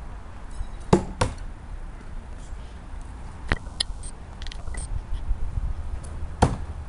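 Thrown tomahawks striking a wooden target board: a sharp double knock about a second in, another strike midway and a third near the end.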